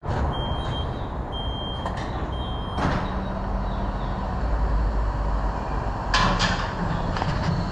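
A car in motion, with a steady low road and engine rumble, and three short high beeps about a second apart near the start.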